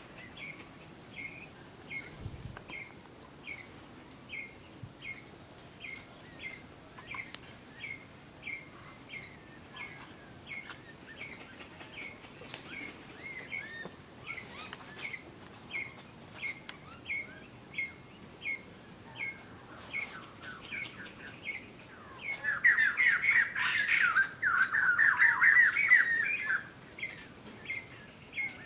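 Birds calling: one bird repeats a short, sharp, downward-sliding call about twice a second, steadily, and from about three-quarters of the way in a louder burst of rapid chattering breaks in for about four seconds.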